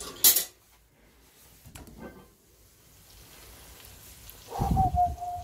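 Heavy cast-iron Dutch oven lid lifted off with a short scraping clank, then the omelette sizzling faintly in the hot pot. Near the end, a louder low thump with a brief held tone.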